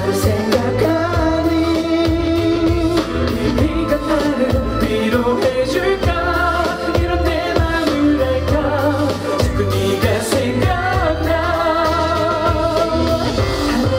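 K-pop song playing over a concert sound system, with a steady low bass pulse and a sung melody carried by the backing track.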